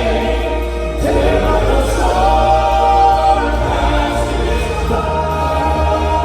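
Southern gospel vocal group singing in harmony, holding a long note about two seconds in.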